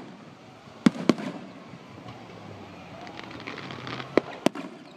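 Aerial fireworks shells bursting: two sharp bangs in quick succession about a second in, fine crackling a couple of seconds later, then two more sharp bangs near the end.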